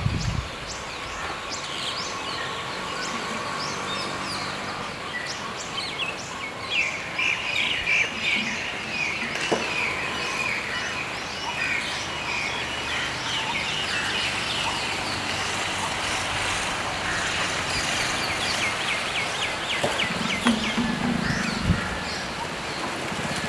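Small birds chirping and calling, with quick runs of trilled notes, over a steady outdoor background.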